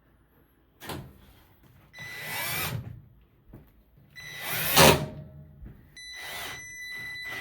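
Power drill/driver driving screws in three short runs, the second ending loudest; the last run is a steady motor whine. It is set to a high speed.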